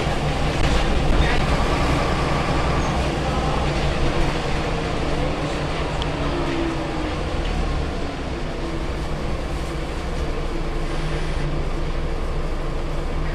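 Cabin noise inside a Scania L94UB city bus underway: a steady low drone from its rear-mounted diesel engine mixed with road noise, with small rattles and clicks from the interior fittings.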